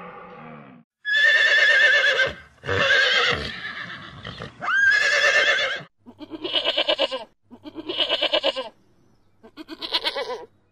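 Sheep bleating: six bleats in a row, each about a second long, with a quavering tremble in the last three.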